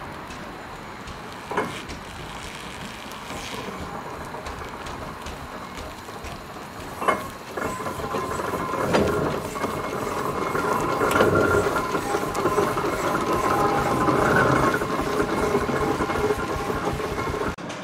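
Fowler steam roller running past close by: engine and gearing clanking with a hiss of steam, growing louder from about eight seconds in, after two sharp knocks.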